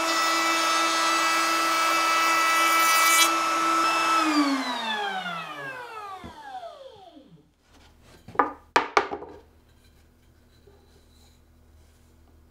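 Trim router running at full speed under a router table while a bearing-guided chamfer bit cuts along the edge of a pine board; the cutting noise stops about three seconds in. The router is switched off about a second later and its whine falls steadily in pitch as it spins down over about three seconds, followed by a few sharp knocks of wood being handled.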